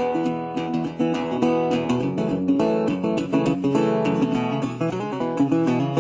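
Background music on acoustic guitar, a run of plucked and strummed notes.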